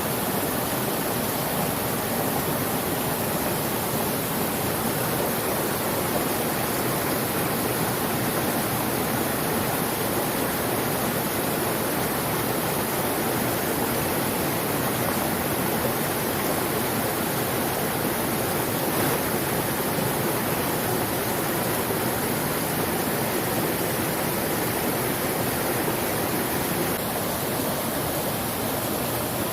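Mountain stream water rushing steadily, a constant even noise.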